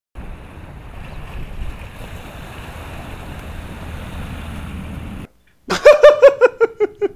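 Steady wind and water noise, as over open water, cuts off abruptly about five seconds in. After a short pause a man laughs loudly, in a quick run of 'ha's that fall in pitch.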